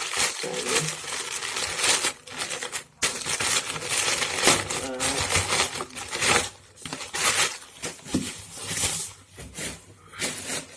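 Packaging of a boxed tripod being handled, rustling and crinkling in irregular bursts with small knocks.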